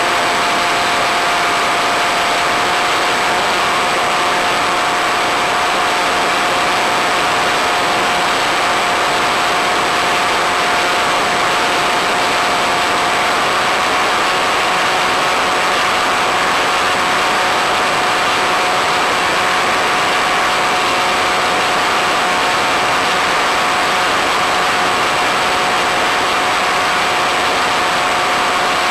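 Multiplex Easystar's electric pusher motor and propeller running steadily in flight, heard through the onboard microphone: a steady whine that edges up slightly in pitch about halfway through, over a loud, even hiss.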